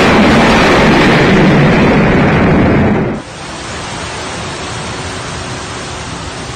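Heavy tropical-storm rain pouring down, a loud, even hiss; about three seconds in it cuts off to a quieter steady rush of floodwater running through a street.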